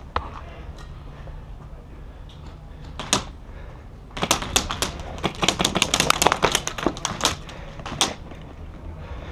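AR-style airsoft rifle firing: a single shot, another about three seconds in, then a rapid string of shots for about three seconds and one more shot near the end.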